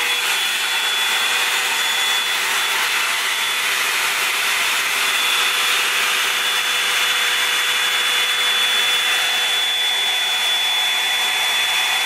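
Revlon 2-in-1 blow dryer and volumizer brush running steadily, drying a section of damp hair: an even whir of air with a high, constant whine over it.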